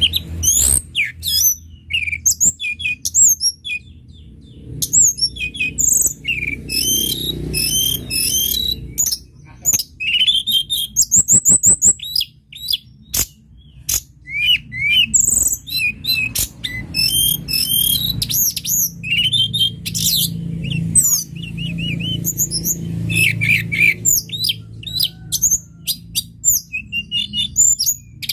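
Tledekan gunung songbird singing a long, varied song of quick whistled chirps, slurred notes and rapid trills: a masteran recording used to tutor caged songbirds.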